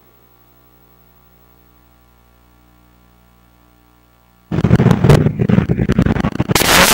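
A low steady electrical hum. About four and a half seconds in, a loud rush of outdoor street noise with crackling wind-like buffeting cuts in abruptly: the soundtrack of an old film clip starting to play.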